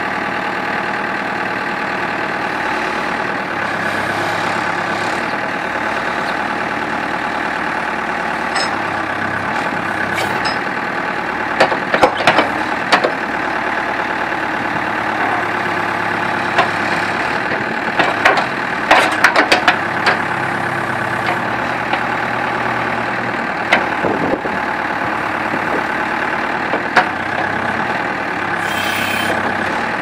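New Holland LB75 backhoe's four-cylinder diesel engine running steadily while the backhoe boom and bucket are worked. A run of sharp metal clanks, the loudest sounds, comes through the middle as the arm moves, and a brief hiss sounds near the end.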